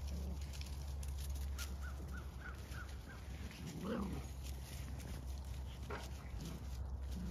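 Golden retriever puppies playing on dry leaf litter: a quick run of five short high squeaks, then one louder puppy yip about four seconds in, over light rustling and scuffling of paws in the leaves.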